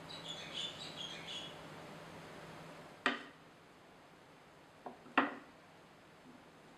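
Kitchen knife slicing button mushrooms on a bamboo cutting board: sharp knocks of the blade striking the board, one about three seconds in and two close together about two seconds later.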